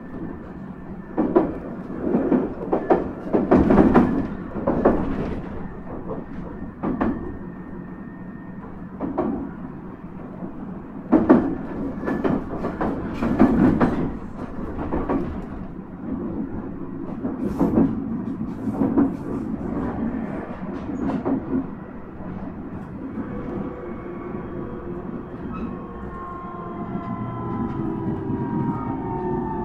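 JR East E127 series 0 electric train running, heard from inside the car: wheels clacking irregularly over rail joints. From about 23 s in, a falling whine of several tones sets in from the traction motors as the train slows.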